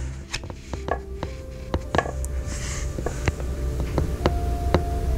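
Soft background music of sparse struck notes, each starting sharply and ringing on, over a steady low hum.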